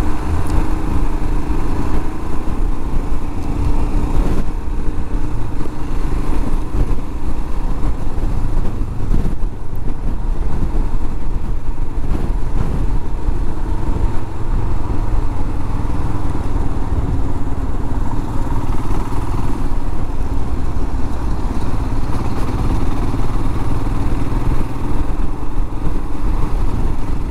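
Motorcycle engine running steadily while riding through city traffic, with a heavy low rumble of wind on the microphone.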